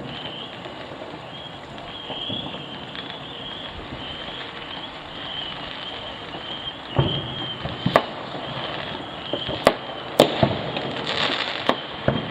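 Fireworks going off in the distance: a run of sharp bangs in the second half, with a brief hiss among them. A faint, wavering high-pitched tone sits underneath throughout.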